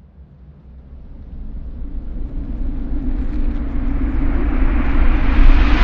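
Cinematic riser sound effect: a rumbling whoosh that swells steadily louder, building toward a boom for the logo reveal.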